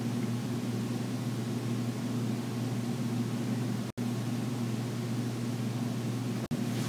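Steady low hum with hiss: room tone picked up by the recording microphone, with no other sound. It is cut by two very brief dropouts, one about four seconds in and one near the end.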